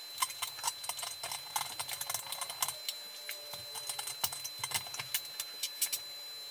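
Ceiling light fixture being fitted to the ceiling by hand: irregular light clicks and metallic rattles from its metal frame, fastening hardware and glass bowl knocking together as it is turned and pushed into place.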